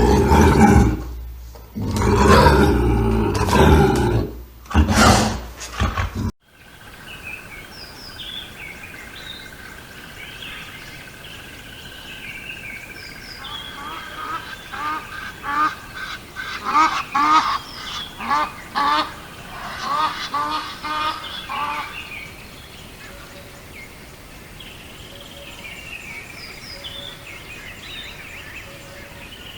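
A large animal's loud, deep grunting calls for about six seconds, cut off suddenly. Then birds calling over a quiet background, with a run of rapid repeated calls from several birds in the middle.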